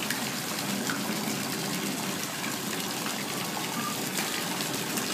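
Steady rush and splashing of water from the cannon-shaped spray jets of a pirate-ship pool slide falling into the pool.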